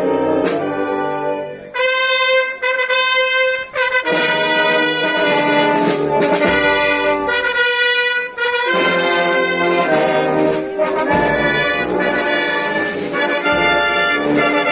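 Procession band playing a slow processional march, brass to the fore: trumpets and trombones hold sustained chords over the tuba's bass, changing chord every second or two.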